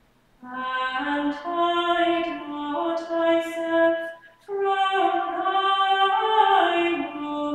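One voice singing unaccompanied chant, held notes moving step by step in pitch, in two phrases with a short breath between them about four seconds in.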